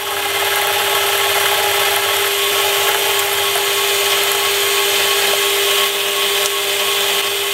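Warco WM180 mini lathe running while a 2 mm parting blade cuts smoothly into a square steel block held in a four-jaw chuck. It gives a steady machine hum with one constant tone under a continuous hissing cutting noise.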